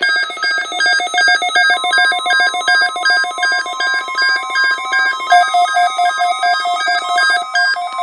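Several NOAA weather alert radios sounding their alert beeps at once, set off by a Required Weekly Test: a dense chorus of rapid electronic beeps at different pitches. A steady tone comes in beneath them about two seconds in.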